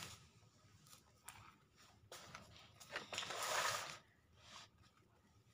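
Paper rustling for about a second as a notebook is handled and laid over a textbook, with a few faint light clicks before it.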